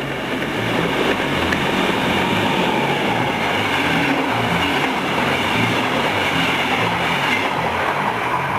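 Electric train passing at speed on the track close by, a steady rush of wheel and rail noise that swells slightly about a second in.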